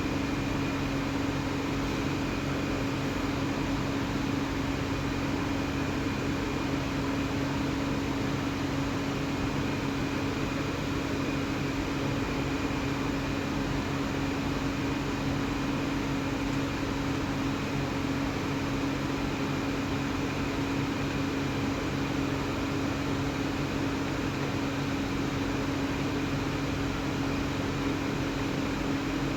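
Electric angle grinder running at a steady speed, polishing steel: a constant motor hum with a fainter high whine and grinding noise that keeps an even level.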